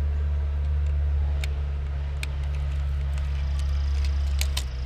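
A steady low engine drone, like heavy equipment or a vehicle idling, runs throughout. A few light clicks come on top, about one and a half, two, and four and a half seconds in.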